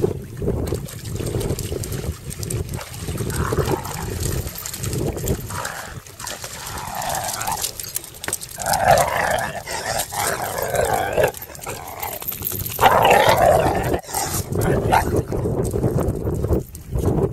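A dog whining in several spells, the longest through the middle, over steady low wind noise on the microphone.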